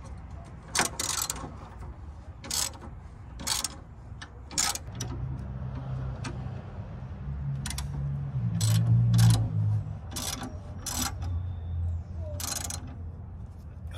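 Socket ratchet and wrench working a nut on a steel strut tower brace: about a dozen sharp metallic clicks and clinks, unevenly spaced, over a low rumble that swells in the middle.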